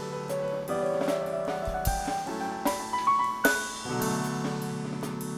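Instrumental background music with piano and drums; a run of notes climbs in pitch through the middle, ending on a sharp hit.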